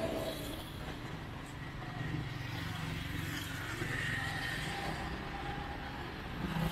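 Street traffic: motor vehicles running and passing, with a low engine hum coming in about two seconds in.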